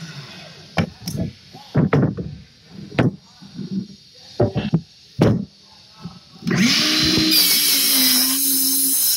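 Wooden boards knocking as they are set against the saw's fence, then about two-thirds of the way in a compound miter saw's motor starts with a rising whine and runs steadily as the blade cuts through the board.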